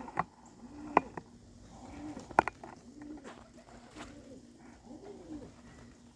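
Pigeons cooing, a series of low coos, with a few sharp clicks and taps in between.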